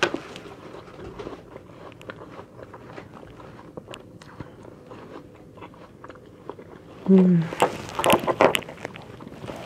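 Crisp Granny Smith apple being bitten and chewed: a crunching bite at the start, several seconds of quiet crackly chewing, a brief low hum about seven seconds in, then louder crunching bites about a second later.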